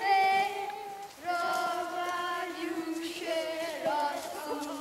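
Children's voices singing a slow melody in long held notes without clear words, with a short break about a second in.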